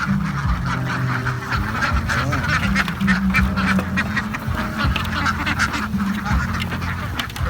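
A flock of domestic ducks quacking and chattering without a break, many calls overlapping.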